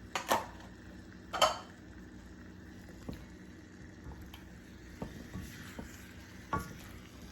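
Cooking utensil clanking against a pan twice near the start, then a few lighter taps as green pepper is stirred in with the chicken, over a faint sizzle.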